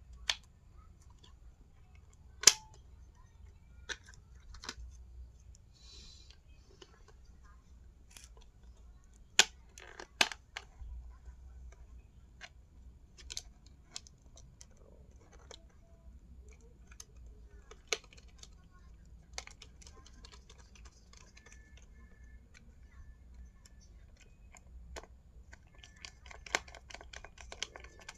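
Scattered sharp clicks and taps from a laptop being handled, with a few louder knocks. Near the end comes a quick run of keyboard key clicks, as in typing.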